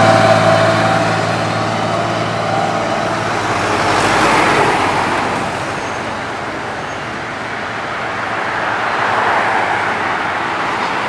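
A box truck's diesel engine passes close at the start and fades within a second. Steady road traffic follows, with tyres hissing on wet asphalt and two more vehicles swelling past, about four seconds in and near the end.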